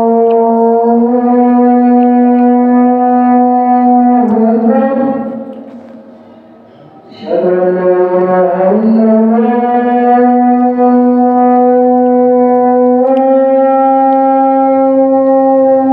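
Loud, horn-like held notes, each lasting several seconds and stepping up a little in pitch now and then. The sound fades out for a couple of seconds in the middle, then comes back with a short rising slide.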